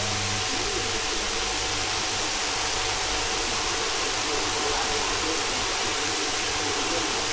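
Steady, even hiss of recording noise with no distinct event. A low hum cuts off about half a second in.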